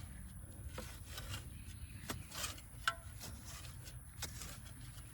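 Shovel digging and scraping through the soil of a raised garden bed: faint scattered scrapes and clicks, with one short squeak about three seconds in.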